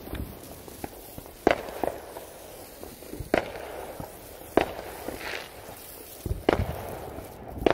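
Firework going off in a series of sharp pops, about seven of them spaced roughly a second or so apart, over a faint steady fizz of sparks.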